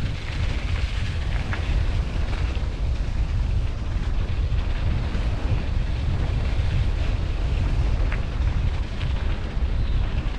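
Wind buffeting the microphone: a steady low rumble with a few faint clicks over it.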